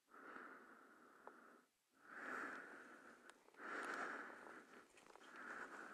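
A person breathing close to the microphone: slow, faint swells of breath noise, four in all, with a few faint clicks between them.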